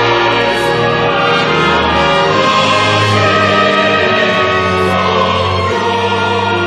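Choir singing a hymn with orchestral accompaniment, sustained chords held at a steady, full level.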